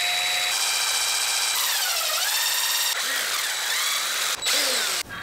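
DeWalt cordless drill spinning a small bit into a 7075 aluminium handlebar through a clamp jig, drilling the locating hole for the throttle housing's tab. The motor note sags about two seconds in as the bit bites, then recovers. Near the end it stops, runs again for a moment and stops.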